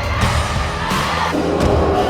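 Pop music with a steady beat.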